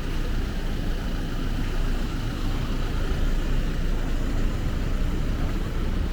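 Steady low rumble of city street traffic, with no single distinct event standing out.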